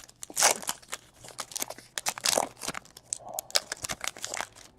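Foil trading-card pack wrappers being torn open and crinkled by hand, a quick run of sharp crackling rustles with short pauses between them.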